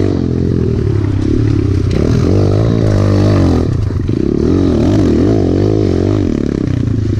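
Small single-cylinder four-stroke pit bike engine (Kawasaki KLX) revving up and down through tight dirt turns, the pitch rising and falling every second or so, easing to lower, steadier revs about six seconds in.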